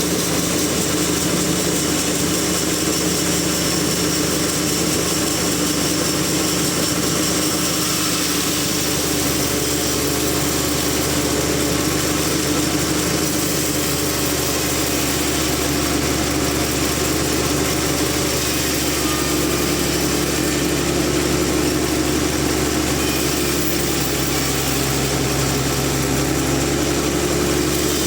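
Sawmill machinery running steadily with a constant mechanical hum and drone. Its tone shifts slightly about two-thirds of the way through.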